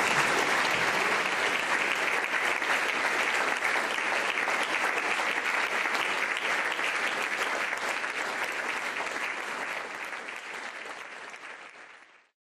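Audience applauding steadily at the end of a lecture, fading slowly and then cutting off shortly before the end.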